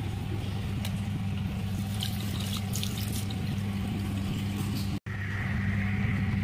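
Tap water running into a ceramic washbasin over a steady low hum. The sound cuts out for an instant about five seconds in, and after that the running water is louder and brighter.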